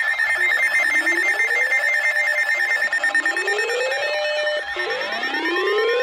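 Many electronic sirens and alarms sounding at once: a whoop alarm rising and cutting off about every two seconds, fast wavering wail and yelp sirens, and steady pulsed beeps. A steady single tone joins near the end.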